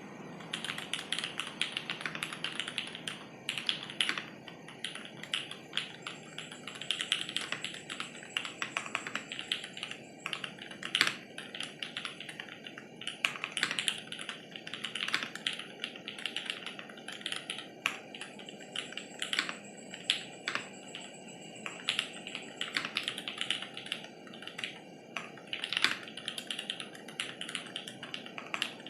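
Continuous typing on a Vertizon FRL TKL mechanical keyboard with lubed Jwick Black linear switches, an FR4 plate, no dampener and ABS Cherry-profile keycaps. It makes a fast, steady patter of keystrokes with occasional louder strokes standing out.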